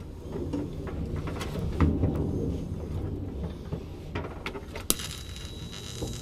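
Scattered clicks and knocks of parts being handled and set against a steel roll cage, with one sharper knock about five seconds in, over a steady low hum. Right at the end a TIG welding arc strikes with a hiss for a tack weld.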